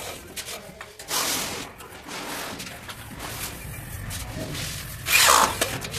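A wooden window shutter being handled and pressed into its frame, with two short scraping rubs of wood on wood, about a second in and again near the end.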